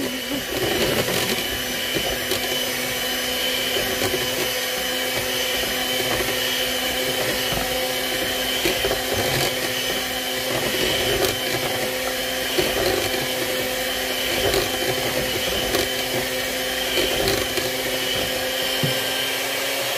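Electric hand mixer running steadily, its beaters whisking chocolate cake batter in a bowl, with a few faint clicks.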